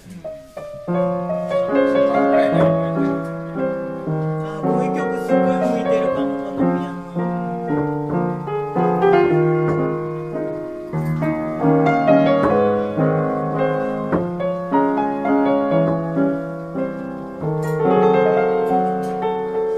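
1872 Ritmüller upright piano being played, chords and a melody line with notes held and overlapping, starting about a second in.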